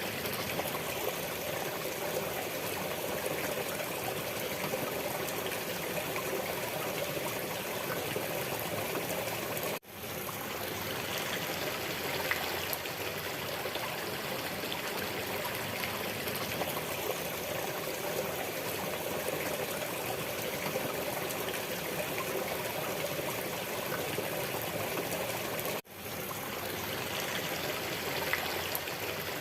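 Running water of a small stream, a steady trickling and babbling. The sound cuts out for an instant about ten seconds in and again near the end, then fades straight back.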